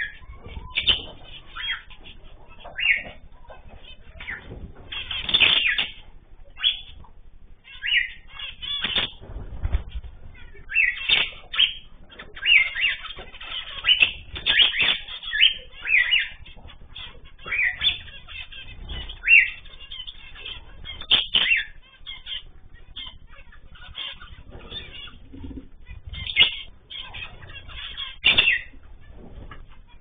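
Zebra finches giving many short, repeated calls, mixed with brief wing flutters as birds move about the perches.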